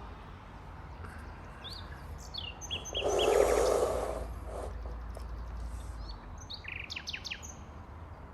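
Small birds chirping in short, scattered calls, with a brief rushing noise about three seconds in that is the loudest sound.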